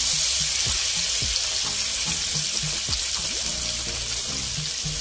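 Chopped chilies, tomato, shallots and garlic sizzling in hot oil in a frying pan as dried shrimp (ebi) are poured in and stirred with a wooden spatula. The sizzle is a steady hiss that eases slightly toward the end.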